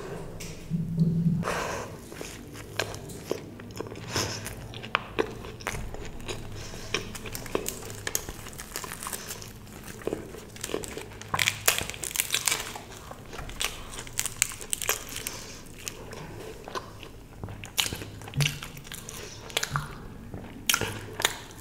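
Close-miked chewing with crisp, irregular crunching bites of crispy fried food, in an eating-sound recording.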